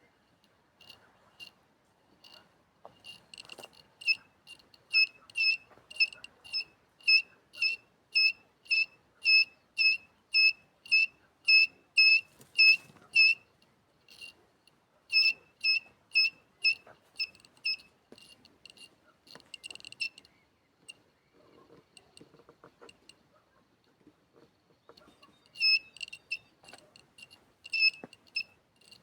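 Electronic long range locator beeping: short, high single-pitched beeps about two a second, in runs that stop and start.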